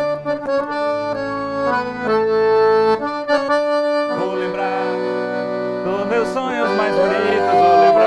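Philharmonic piano accordion playing a solo forró melody over held chords: the opening bars of a song's introduction.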